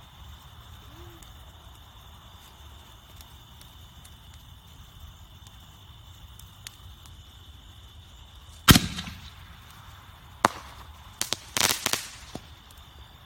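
Reloadable firework canister shell fired from its mortar tube: one loud bang as it launches, then about two seconds later a sharp report as it breaks, followed by a quick run of cracks and pops.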